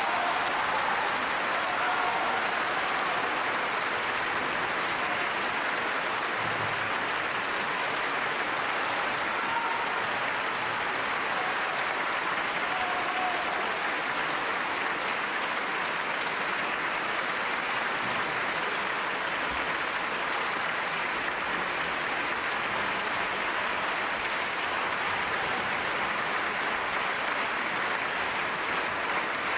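Large concert-hall audience applauding: a dense, steady clapping that holds an even level throughout.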